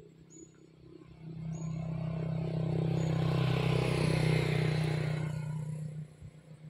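A passing engine: its steady hum swells over about a second, holds, then drops away suddenly about six seconds in.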